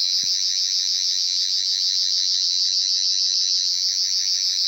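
Toy 13th Doctor's sonic screwdriver playing its electronic sonic sound effect through its small speaker: a loud, steady, high-pitched buzz with a fast warble.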